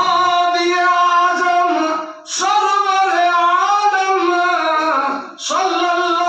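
A man singing a naat (devotional verse) unaccompanied into a microphone, in long drawn-out phrases with wavering, gliding notes, pausing twice briefly for breath.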